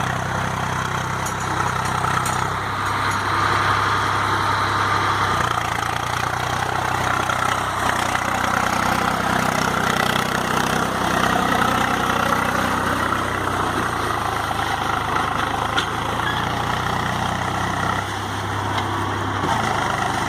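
Farm tractor's diesel engine running steadily, its note shifting slightly about five seconds in and again near the end.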